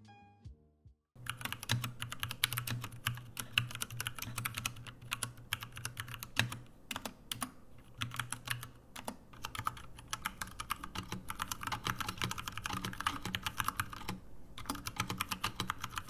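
Typing on a Poker 60% mechanical keyboard: a rapid, steady clatter of key switches and keycaps starting about a second in, with short pauses. The keyboard is heard first in its stock plastic case and then in a GH60 wooden case.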